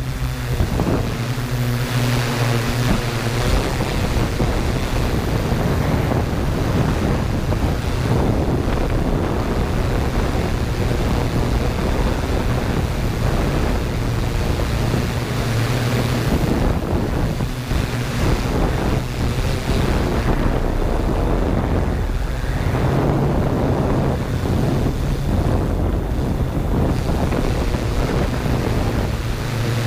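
Yuneec Q500 quadcopter's electric motors and propellers running in flight, a steady low hum under heavy wind noise on the drone's on-board microphone.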